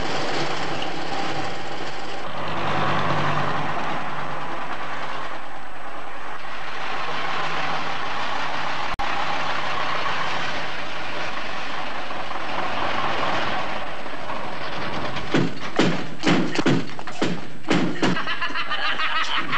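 Double-decker bus engines running, steady and loud. About three-quarters of the way in, a quick run of short, sharp sounds, several a second, lasts for about three seconds.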